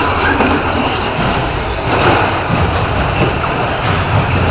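Radio-controlled short-course trucks racing on a track: motor whine and tyre noise over a loud, steady low rumble.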